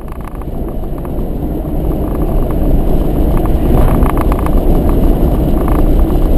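Steady rumble of road and wind noise from a car driving along at speed, fading in over the first couple of seconds.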